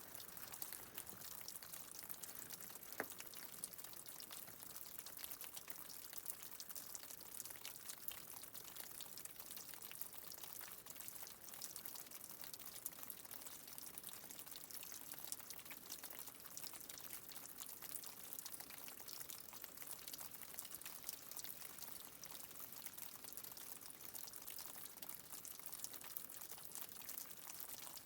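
Running water trickling and splashing steadily, with many small droplet ticks through it and one sharper tick about three seconds in.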